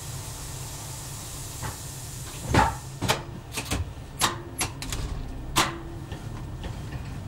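Low steady hum of the Y1 railcar's Volvo engine idling at a standstill. From about two and a half seconds in there is a series of sharp clicks and clunks, about eight of them over three seconds, with the first the loudest.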